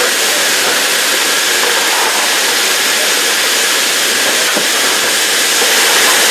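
Steam hissing steadily from the standing Stroudley A1 'Terrier' tank locomotive 'Fenchurch'.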